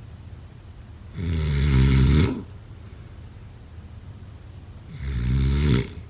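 Snoring: two loud snores, each about a second long, roughly four seconds apart.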